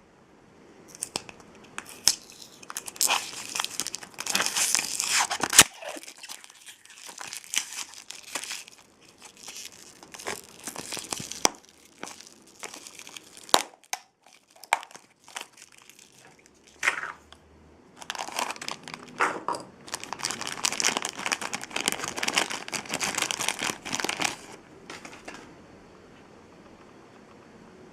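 Plastic toy packaging crinkled and torn open by hand, in two long bouts of dense crackling with a sharp click about five and a half seconds in and lighter handling between them.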